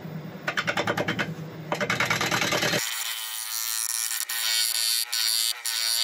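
Turning tool cutting the face of a large spinning Scottish elm blank on a wood lathe. At first it is a rapid rhythmic tapping over the lathe's hum, about eight a second. After about three seconds it becomes a steady hissing scrape of shavings peeling off, broken by a few short pauses as the tool lifts.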